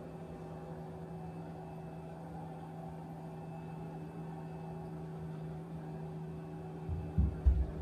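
A steady machine hum, with a few low thumps near the end.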